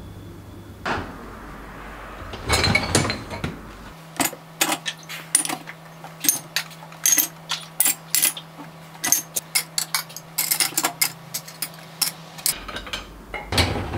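Kitchenware being handled: a quick, irregular run of light clinks and knocks of hard objects set down and moved about, after a brief rustle near the start.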